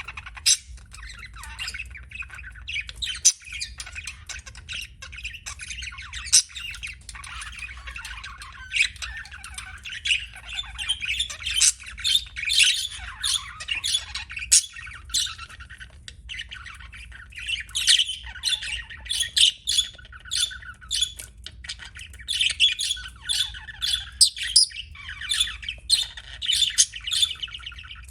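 Budgerigars chirping and warbling, a dense stream of short, rapid chirps.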